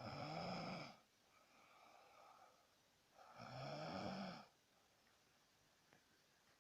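A teenage boy snoring in his sleep: two loud snores, each about a second long and some three seconds apart, with a softer breath between. The snoring comes from his head lying in a position that obstructs his breathing.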